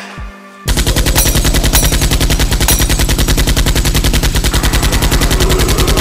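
Sound effect of automatic machine-gun fire: one long, unbroken burst of rapid shots starting under a second in.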